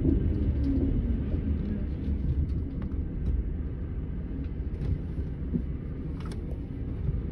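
Setra S 431 DT double-decker coach's diesel engine running, a steady low rumble that slowly eases off, with a few faint clicks.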